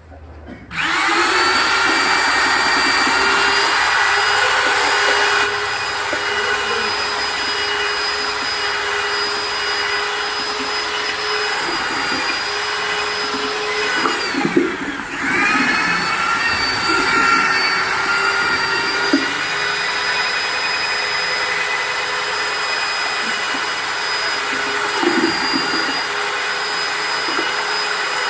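Handheld electric power tool motor running at high speed with a steady whine; about fourteen seconds in it winds down and stops, then starts again within a second and runs steadily.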